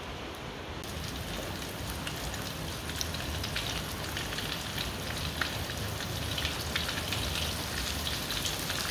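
Batter-coated chicken drumsticks frying in hot oil in a wok: a steady sizzle with many small crackles. It brightens about a second in and grows slightly louder.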